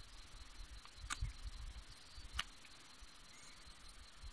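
Faint handling of a freshly caught largemouth bass and its frog lure: two sharp clicks, about a second and a third apart, with low bumps between them, as the hooks are worked out of the fish's mouth.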